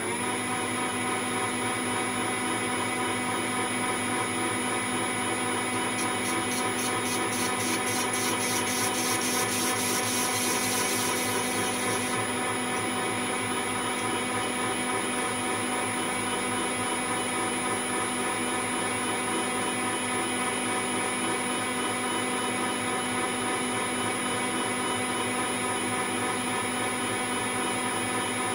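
Metal lathe running steadily with a stainless steel tube spinning in its three-jaw chuck; the motor and gearing give an even whine. From about six seconds in, a fast, high rattle sits over it for about six seconds.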